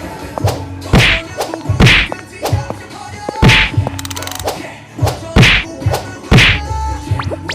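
Sound-effect rhythm: loud whacks and thuds land roughly once a second, with smaller clicks and short pitched blips between them.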